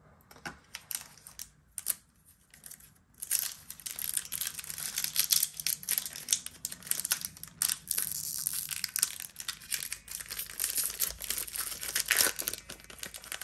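Foil wrapper of a Pokémon Lost Origin booster pack crinkling steadily as it is handled and torn open, after a few light taps of cards being set down.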